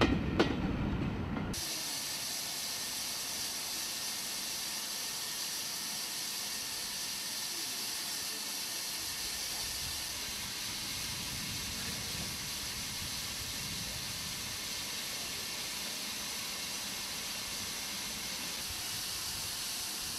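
A train rumbling past with a click from the wheels, cut off after about a second and a half; then steam hissing steadily from a standing steam locomotive.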